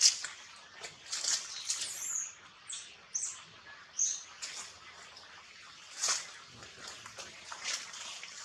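Dry rustling and crackling of leaves and twigs, with a few short, high bird chirps between about two and four seconds in.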